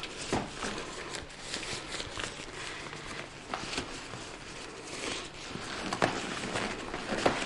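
Fabric rustling with scattered small clicks and knocks as a cloth cover is stretched by hand over a kayak's cockpit rim, a little louder near the end.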